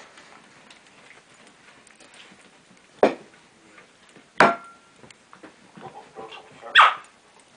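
Basenjis, an adult with four-week-old puppies: three short, sharp dog yelps. The second comes about a second and a half after the first, and the third about two and a half seconds after that.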